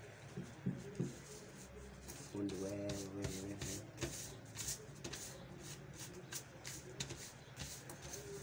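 Kraft paper being folded and pressed flat by hand, giving short repeated rustles and rubs as the glued fold is smoothed down.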